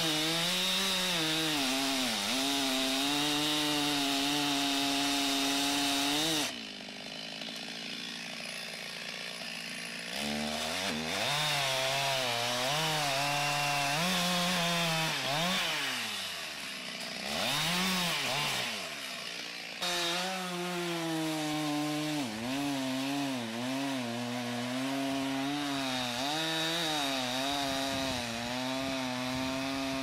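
A two-stroke chainsaw running at speed while it cuts into a standing tree trunk. It eases off about six seconds in, revs up and down several times through the middle, then settles back into steady cutting.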